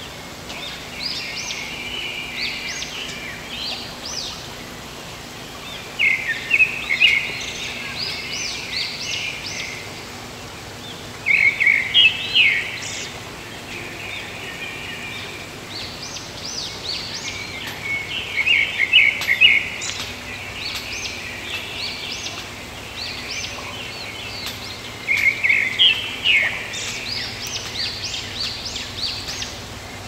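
A songbird sings the same phrase over and over, about every six to seven seconds: a burst of loud, quick notes followed by a couple of seconds of softer chirping. Under it is the steady rush of running river water.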